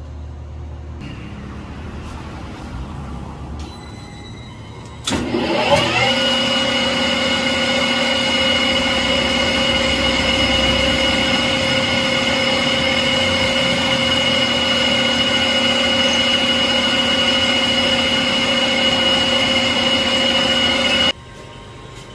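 Small metal lathe started about five seconds in, spinning up to a steady mechanical whine with several fixed tones while a tailstock drill bores an 8 mm hole into a white engineering-plastic rod. A quieter low hum comes before it, and the lathe sound cuts off suddenly about a second before the end.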